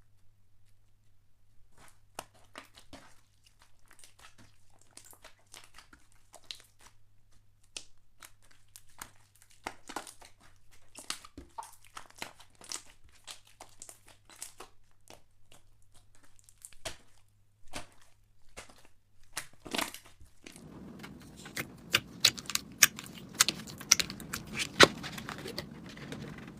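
Slime being squeezed and worked by hand, giving a run of small crackling clicks and pops. About 20 s in, a steady hiss comes up underneath and the pops grow louder and more regular.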